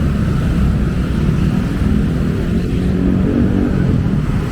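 Busy city street traffic: car and motorcycle engines running past in a steady low rumble.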